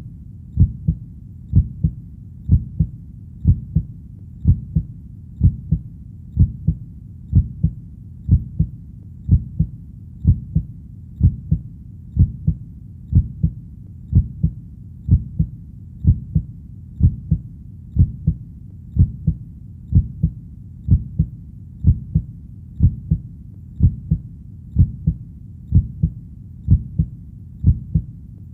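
Heartbeat played steadily at a slow, even rate of about one beat a second. Each beat is a low double thump (lub-dub), over a faint low rumble between beats.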